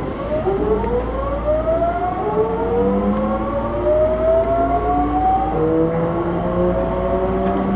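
Osaka Metro 66 series subway train accelerating: the traction inverter's whine rises in pitch as several stacked tones, then a fresh set of rising tones begins about five and a half seconds in, over a steady low rumble of the running gear.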